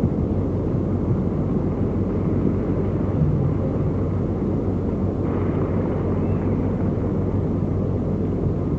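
Steady murmur of a large arena crowd heard through an old TV broadcast, with a low hum underneath.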